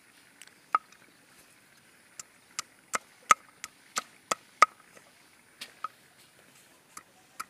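Machete chopping a bamboo tube into pegs for pinning plastic mulch: about fourteen sharp, irregular chops, coming fastest in the middle.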